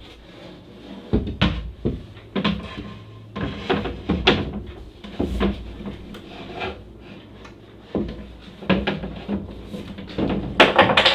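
A bowed, fiberglassed plywood side panel being worked into a tight fit against a boat's cockpit side: irregular knocks, bumps and scraping of the panel against the framing, with the loudest cluster of knocks near the end.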